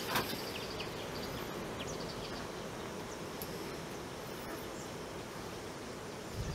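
Steady outdoor background with faint insect buzzing and a few short, high chirps scattered through. There is one brief louder click just after the start.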